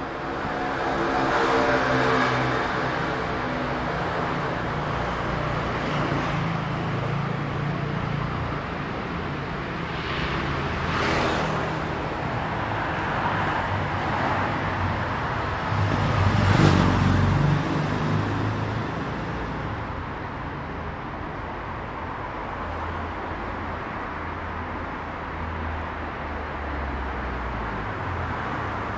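City street traffic: a steady hum of motor vehicles, with an engine running close by in the first few seconds. Cars pass now and then, the loudest about two-thirds of the way through.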